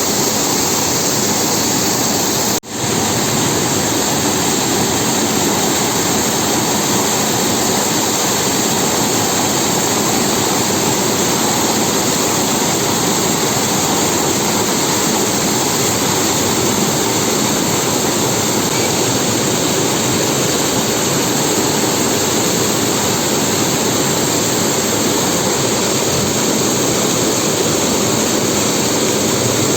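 Waterfall close by, falling water making a steady, loud rush with a brief break about two and a half seconds in.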